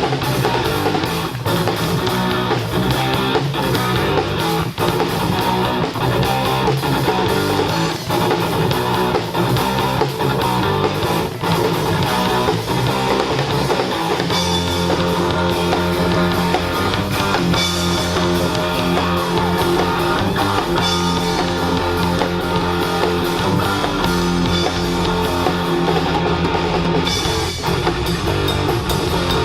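Live rock band playing, with electric guitar, bass guitar and drum kit.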